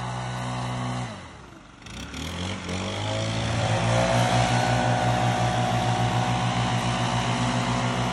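Gas backpack leaf blower engine running with the rush of its air blast. About a second in the throttle is let off and the engine speed falls. It then revs back up and is held at full throttle with a fast, even pulsing.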